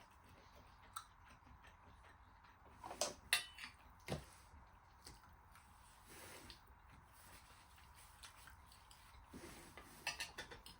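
Quiet eating sounds: cutlery clicking and scraping against a plate a few times, loudest about three to four seconds in and again near the end.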